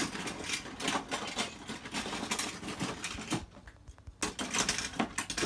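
Hands rummaging through a cardboard box of small metal odds and ends, a dense rattle of clicks and clinks, with a short lull about three and a half seconds in before the rummaging starts again.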